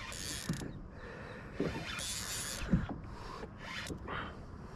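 Spinning reel working under the load of a hooked catfish, with irregular mechanical clicking and creaking, a little louder about two seconds in.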